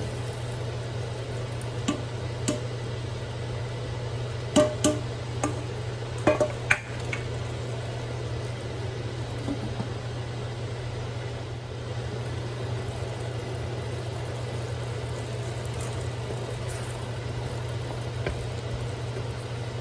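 Wok being covered with its metal lid: several sharp metal knocks between about two and seven seconds in, then a steady low hum while the vegetables cook under the lid.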